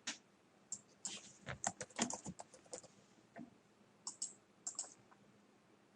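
Faint, irregular clicking of a computer mouse and keyboard as geometry is picked in CAD software: a quick run of clicks early in the first half, then a few double clicks later.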